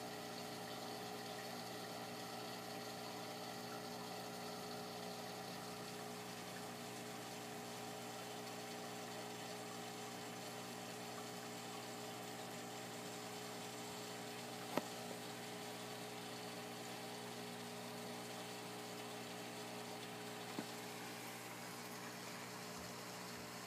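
Steady electrical hum made of several even tones, broken by two short sharp clicks about 15 and 21 seconds in.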